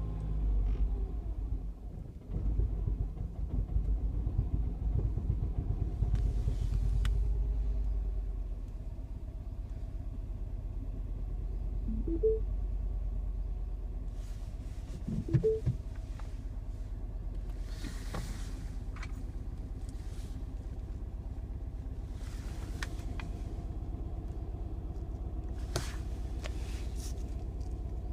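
Mini R55 John Cooper Works 1.6-litre turbocharged four-cylinder engine idling, uneven and louder for the first several seconds, then settling into a steadier run. It is misfiring on cylinders 1 and 3, which the owner eventually traced to a failing high-pressure fuel pump.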